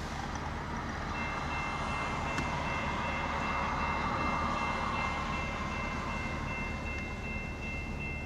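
Railroad grade crossing warning bell starting about a second in and ringing steadily as the crossing activates for an approaching train, heard from inside a vehicle.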